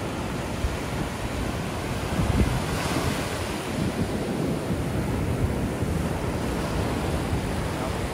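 Ocean surf breaking and washing up the beach, with one wave swelling louder about three seconds in, and wind rumbling on the microphone.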